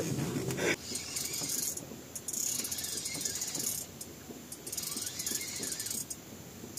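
Night insects buzzing in repeated swells, each a second or so long with short gaps between, over a brief rustle of handling at the start.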